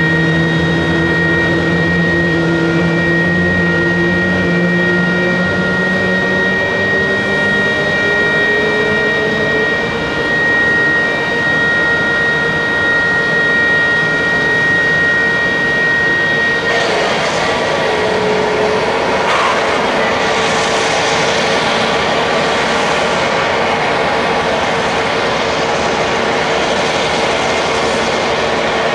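Airbus A320neo jet engines whining during troubled start attempts, in which the engines start and then shut off again. A steady high whine carries lower tones that slowly rise for the first several seconds. About two-thirds of the way through the high tone stops and a rougher rushing sound takes over, with a couple of falling sweeps.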